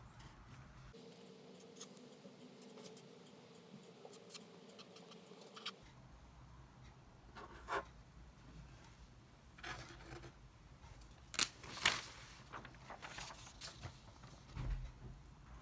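Quiet handling of small objects: scattered light clicks, scrapes and rustles, the two loudest close together about eleven and twelve seconds in, with a low thump near the end. A faint steady hum runs under the first five seconds.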